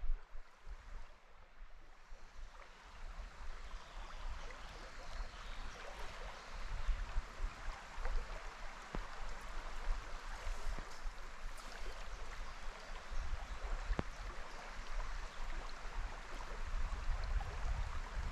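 Flowing river water: a steady rushing hiss of a small river, with a couple of faint sharp clicks.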